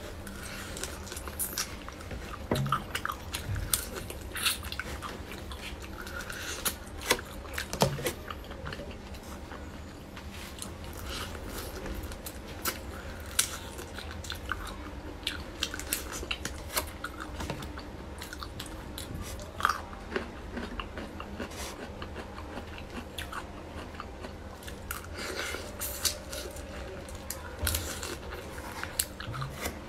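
Close-up eating sounds of whole marinated shrimp: shells crunching and cracking between the teeth with wet chewing, in irregular crisp clicks throughout.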